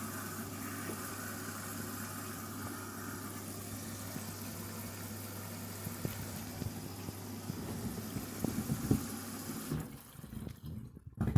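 Candy washing machine filling at the start of a synthetics wash: a steady rush of water through the inlet valve into the drum, over a constant low hum. The rush drops away about ten seconds in.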